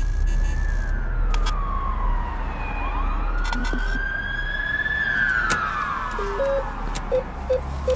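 A siren wailing with a slow rise and fall over a steady low rumble. In the last two seconds come about five short electronic beeps, the presses on a cash machine's keypad.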